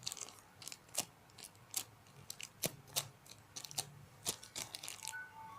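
A homemade squishy being squeezed and handled in the hands, giving a run of sharp, irregular crinkly clicks and crackles.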